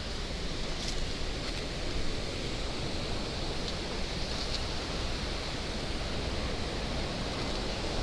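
Steady rushing of a river's whitewater rapids.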